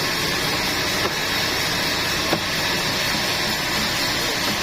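Sawmill machinery running with a steady noise, with a couple of faint clicks.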